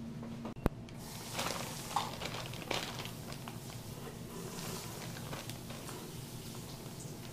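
A sharp click just under a second in, then a clear plastic zip-top bag rustling and soft wet handling as battered catfish pieces are dipped and dropped into the bag of breading, over a low steady hum.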